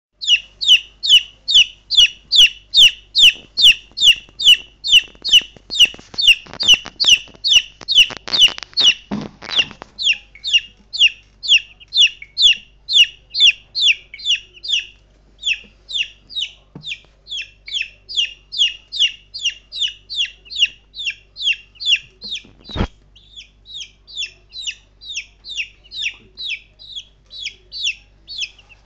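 Three-week-old chicks peeping loudly and without a break, short falling peeps at about two to three a second, calling for their owner. A run of clicks comes about a third of the way in, and a single knock about three-quarters through.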